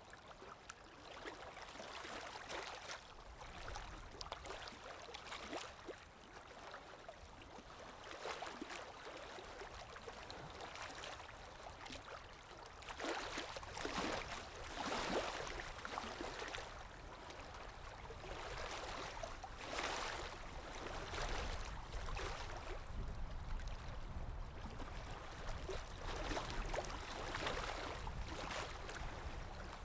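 Flowing water trickling and splashing, with louder splashy surges around the middle.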